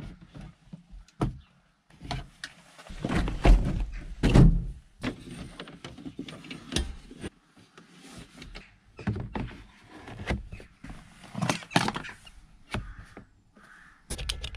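Irregular thuds, knocks and clunks of things being handled and taken out of a tractor cab, with a door shutting. The two loudest deep thumps come about three and a half and four and a half seconds in.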